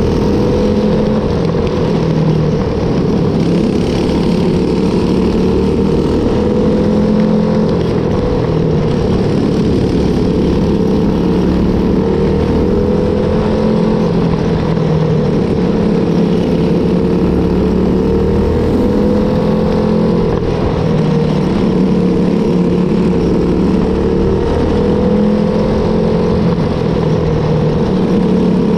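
Predator 212 non-hemi single-cylinder kart engine with an aftermarket exhaust and its governor disabled, running hard at high revs, its pitch rising and dipping again and again as the kart laps the dirt oval.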